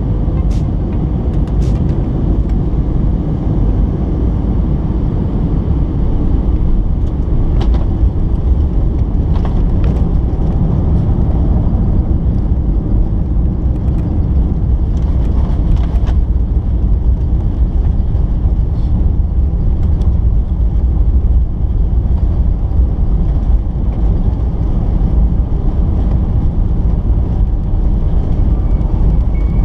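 Loud, steady low rumble inside the cabin of an Airbus A320-family airliner touching down and rolling out on the runway, with its spoilers up. Scattered sharp knocks and rattles come through the rumble, most of them between about a quarter and half of the way in.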